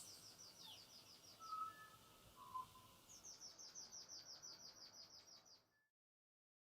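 Faint bird calls: a rapid trill of repeated high, slightly falling notes, about eight a second, then a few lower whistled notes, then a second, longer trill starting about three seconds in. The sound stops a little before the end.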